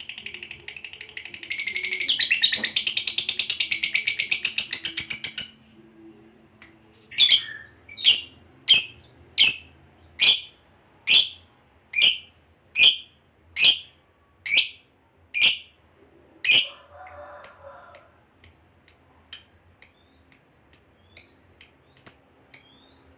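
Fischer's lovebird giving a long, rapid chattering trill (ngekek) for about four seconds. It follows with a string of loud, shrill single calls a little more than one a second, then quicker, softer chirps about three a second near the end.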